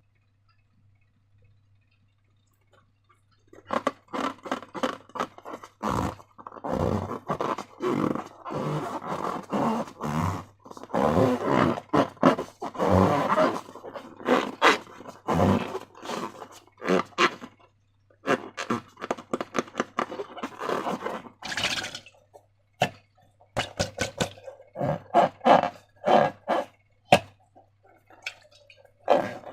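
Slime being squished and worked by hand: irregular sticky squelches and crackling clicks, starting about three and a half seconds in, with a faint low hum underneath.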